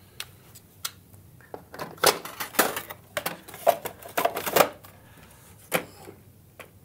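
A series of sharp knocks and clicks as a Gaggia Titanium espresso machine's stainless drip tray and dregs drawer are pushed home and its front service door is shut.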